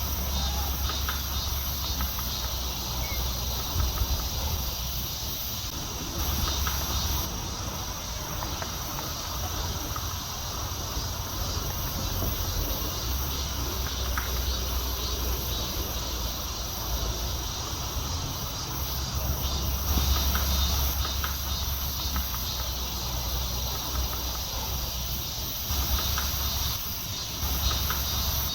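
Insects, crickets by their sound, trilling steadily at a high pitch, over a low rumble that comes and goes. A few faint clicks or taps stand out here and there.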